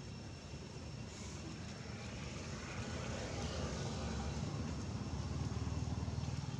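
A motor vehicle's engine running with a low hum that grows steadily louder.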